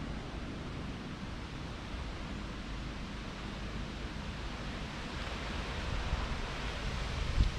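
Steady noise of wind on the microphone, a flickering low rumble under an even hiss, growing a little louder about five seconds in.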